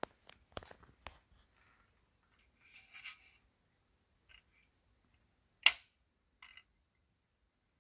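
Parts of a metal RC truck chassis kit being handled: scattered clicks and taps, a short rustle about three seconds in, and one sharp knock a little before six seconds.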